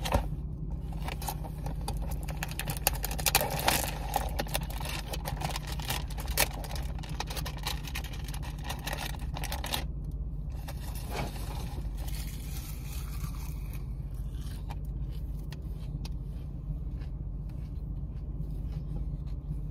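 Crackling and rustling of a plastic package of salad greens being handled, with crunchy clicks from the leaves, dense in the first half and sparser later. A steady low car hum runs underneath.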